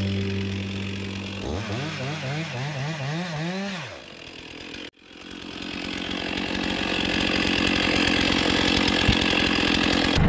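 Stihl two-stroke chainsaw revving up and down in quick surges while bucking a felled log. After a sudden break about halfway, it runs steadily again, growing louder.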